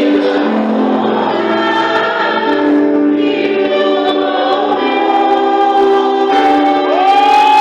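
A choir singing a slow Christian worship song in long held notes. Near the end a voice slides up into a long high note.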